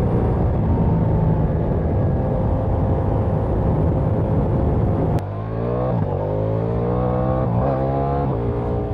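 Ducati Diavel V4's V4 engine and exhaust running at a steady cruising speed with wind rush. About five seconds in there is a sharp click and the sound changes abruptly, then the engine revs up hard, its pitch climbing and dropping at each quick upshift, three times.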